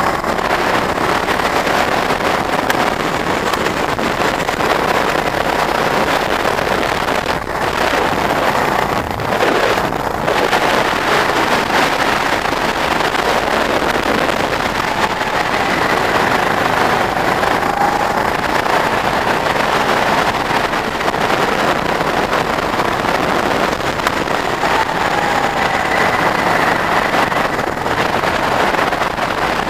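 Go-kart running at speed, heard from the driver's seat, its motor note rising and falling a little through the corners, with heavy wind noise on the microphone.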